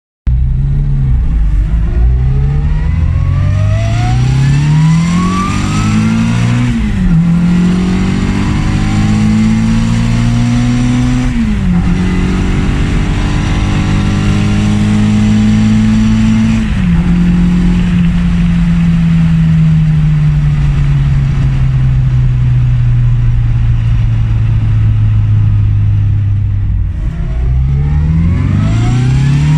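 Morris Mini's 1330 cc Cooper S A-series four-cylinder engine heard from inside the car, revving up through the gears with three sharp drops in pitch at the upshifts. The note then falls slowly as the car eases off, dips once more and climbs again near the end as it accelerates.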